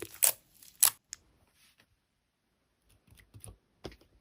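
Slime being squeezed and pressed by hand, giving a few sharp crackles and pops, a pause of about two seconds, then softer clicks near the end.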